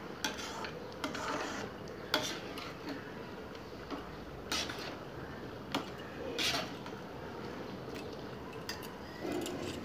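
Metal spatula stirring thick milk-and-rice pudding in a metal pan, with irregular clinks and scrapes of metal against the pan, about one every second or so.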